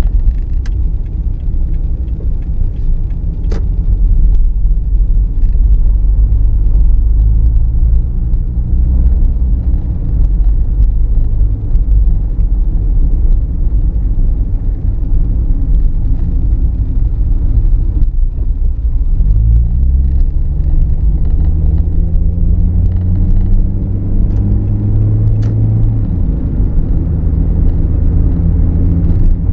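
Car driving on a freeway, heard from inside the cabin: a steady low road-and-engine rumble, with the engine note rising as the car speeds up about eight seconds in and again about nineteen seconds in.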